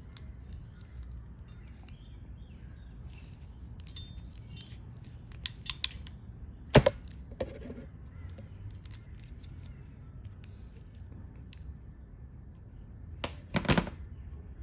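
Hand crimping tool closing on an MC4 connector pin: scattered small clicks, then a sharp snap about seven seconds in and another close pair near the end.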